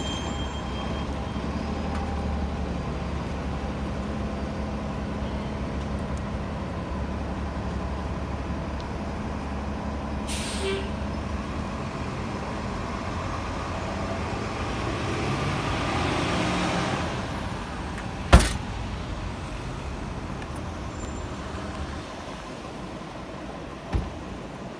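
Large vehicle engine, likely the adjacent city bus, idling with a steady low hum, and a short air hiss about ten seconds in. A swell of passing traffic noise follows, then one sharp knock, the loudest sound, and a fainter one near the end.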